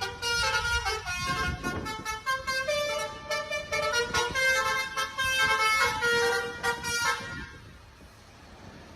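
Tour bus basuri telolet horn, a multi-tone musical horn, playing a quick melody of short notes that changes pitch every fraction of a second. It stops about seven seconds in, leaving a low rumble.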